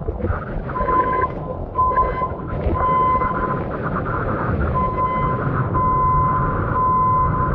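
Storm wind and rushing floodwater, a loud rough noise, with a steady high beep sounding about six times, roughly once a second, each lasting a fraction of a second.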